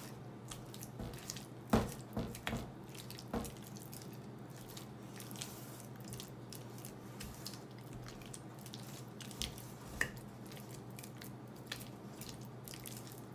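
A spatula stirring and mashing a thick cream cheese, onion and tomato mixture in a stainless steel bowl: soft squishing with irregular clicks and taps of the spatula against the metal, over a steady low hum.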